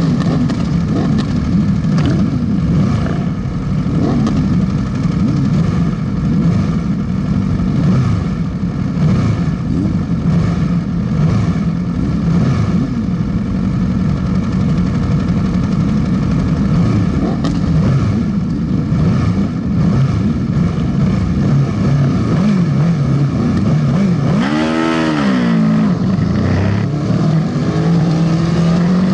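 Sportbike engine idling steadily, with wind buffeting on the microphone. About 25 seconds in, an engine revs up and falls back down once.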